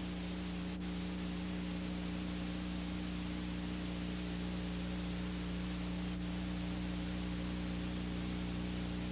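Steady hiss of an old recording with a low electrical hum under it, and two faint clicks, about a second in and about six seconds in.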